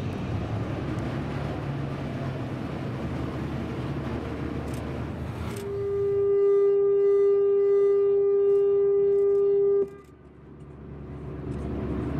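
Sightseeing boat's engine running with a low steady rumble, then the boat's horn sounds one long steady blast of about four seconds that cuts off sharply, signalling its departure from the pier.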